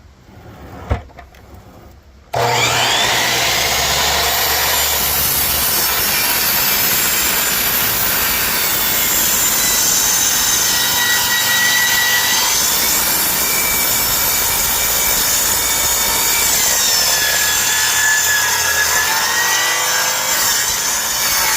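Power saw cutting wood. It starts suddenly about two seconds in and runs steadily, its whine dipping and rising in pitch as it cuts.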